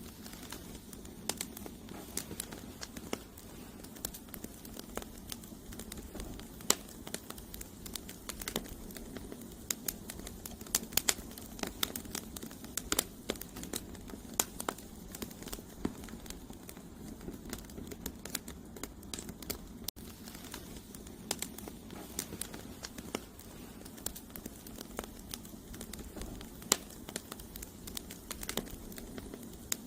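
Campfire of burning firewood logs crackling and popping: irregular sharp snaps scattered over a steady low rush of flame.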